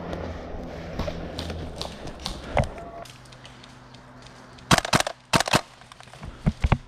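Airsoft gunfire: a quick string of about five sharp cracks in roughly a second, a little past the middle, among scattered clicks and softer knocks.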